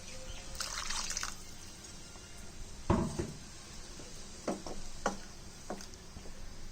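Rinse water poured from a mixer jar into a pot of sambar, a short splashing pour about a second in, followed by several light knocks of utensils against the pot.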